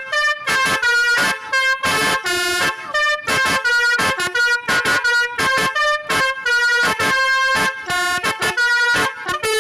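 Basuri V4 telolet musical air horn on a bus playing a fast tune of short, changing notes, with brief breaks between phrases.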